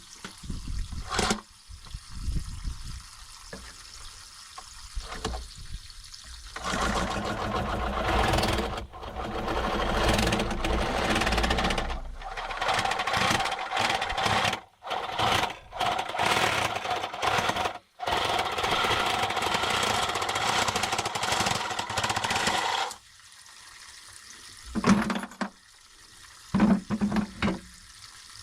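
A handheld power tool running and cutting through pipe for about sixteen seconds, stopping briefly twice. A few short knocks follow near the end.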